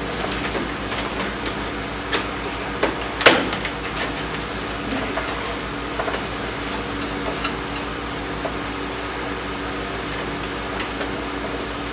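Scattered clicks and knocks from motorcycle plastic trim and hand tools being handled, with one sharp clack about three seconds in, over a steady hum.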